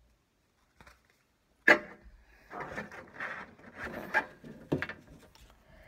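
Pokémon trading cards being handled: a sharp tap as a card is put down, then cards rustling and sliding against each other and the surface, with a second tap near the end.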